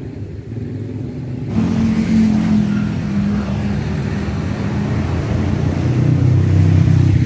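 A motor vehicle's engine running close by, starting about a second and a half in, its pitch dropping and then rising as it goes by, and getting louder toward the end.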